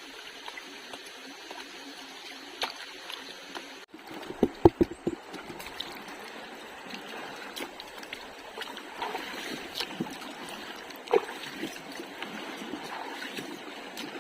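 Water trickling and splashing, with a brief drop-out about four seconds in followed by a quick run of sharp knocks, the loudest sounds, and scattered small clicks.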